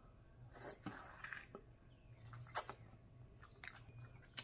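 Faint wet mouth sounds of eating snow crab meat dipped in butter sauce: a slurp about a second in, then lip smacks and sharp clicks, with sucking sauce off the fingers near the end.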